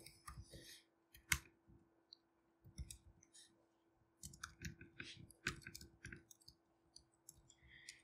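Faint, irregular keystroke clicks on a computer keyboard as shell commands are typed, with one sharper key press about a second in.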